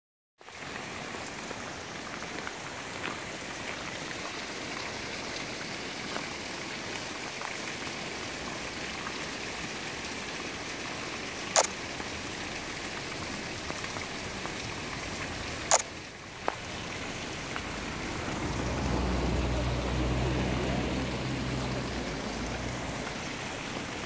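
Steady rush of flowing water from a mountain stream and a thin waterfall splashing into a pool. Two sharp clicks come about halfway through, and a low rumble swells and fades in the last few seconds.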